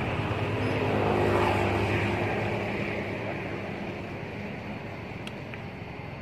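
A motor vehicle's engine running nearby, with a steady hum that swells about a second and a half in and then slowly fades, as of a vehicle passing.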